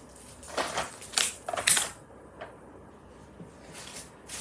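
Tableware being handled on a table: a quick run of short scrapes and clinks, then a single click and a faint rattle near the end.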